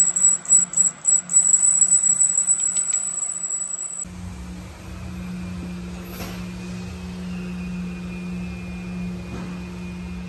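Flat face cutter on a boring machine cutting a cylinder counterbore in a 6.7 Cummins block: a loud, high-pitched squeal that pulses several times a second, stopping abruptly about four seconds in. After that a steady low machine hum remains.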